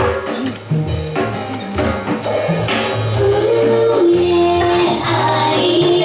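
Live acoustic band playing: upright double bass plucking a moving bass line under strummed acoustic guitars, with the drum kit keeping a steady beat. About halfway through a woman's voice comes in singing long held notes.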